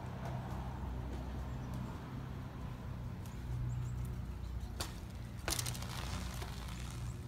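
Mountain bike riding off the end of a narrow wooden beam: two sharp knocks about half a second apart, a little before the bike goes past, as the wheels drop onto the asphalt, followed by a brief hiss of tyres. A steady low hum and faint bird chirps run underneath.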